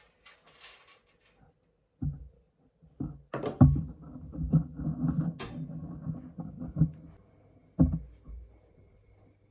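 Knocks and clatter of objects being handled: one knock about two seconds in, a run of uneven knocks and clatter from about three to seven seconds, and another knock near eight seconds.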